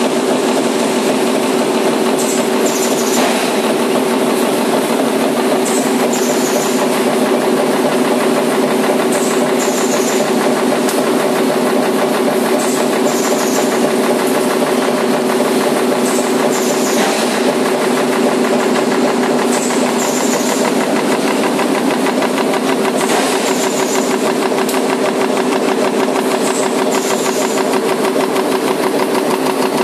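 High-speed progressive stamping press with a carbide die punching motor rotor and stator laminations from steel strip, running continuously at about 380 strokes a minute: a fast, even clatter of strokes over a steady hum, with short hissing bursts every few seconds.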